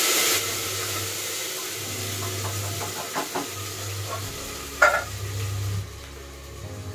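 Sizzling and hissing in a hot steel pot on a gas stove as something is poured in from a steel tumbler. The hiss is loud at first and drops sharply within the first half second, then goes on as a softer sizzle. Light metal clinks follow, and one sharp metal knock comes about five seconds in.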